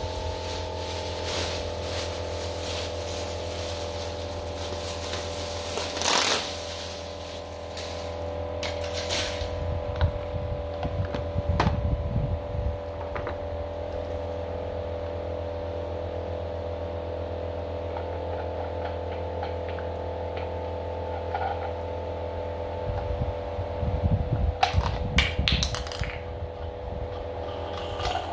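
Plastic and metal wall-fan parts being handled and fitted together, the motor housing set onto the wire rear guard, giving scattered clicks and knocks. A steady hum runs underneath throughout.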